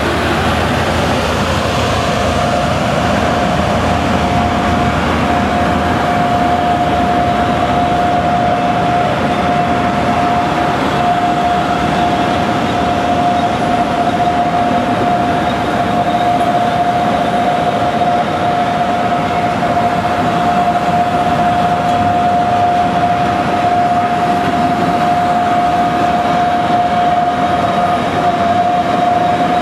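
Container freight train hauled by a class 3E/1 electric locomotive running through the station, its wagons rolling past in a steady rush of wheel and rail noise. A steady high-pitched whine runs through it from about a second in.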